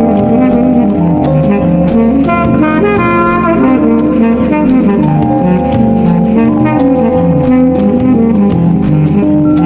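Background music: a jazzy tune with a saxophone-like lead over a steady beat.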